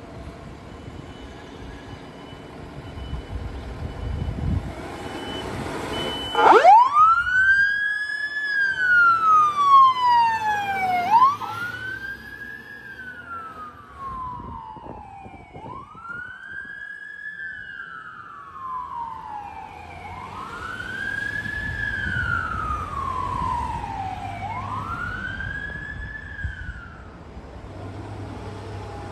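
Fire pumper's engine rumbling, then about six seconds in its Federal Signal PA300 electronic siren starts in wail. Each cycle is a quick rise in pitch and a slow fall, repeating about every four and a half seconds, and it is loudest in the first two cycles.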